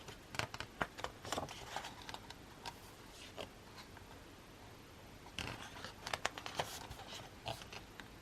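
Faint handling of a music album's paper and card contents: light rustling and small clicks and taps. They come in two bursts, one at the start and another a little past halfway.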